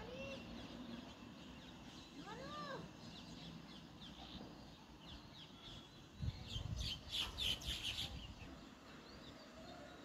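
House sparrows chirping: many short, high chirps throughout. Two lower, arching calls sound near the start and about two and a half seconds in. About six seconds in, a loud burst of rustling clatter lasts nearly two seconds.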